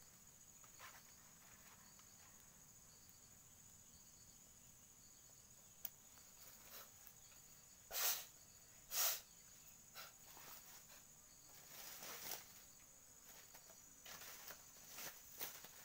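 Faint, steady high-pitched drone of insects, such as crickets, with short rustling noises: two loud ones about halfway through and several smaller ones after.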